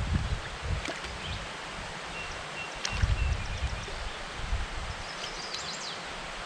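Outdoor ambience: wind gusting on the microphone with rustling, plus a few short high chirps about five seconds in.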